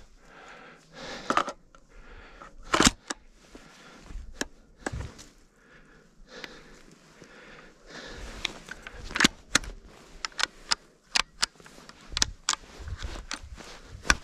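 Twigs and dry brush snapping and crackling as someone pushes through a brush pile on foot, with a sharp snap a little under 3 s in and a quick run of snaps in the last several seconds.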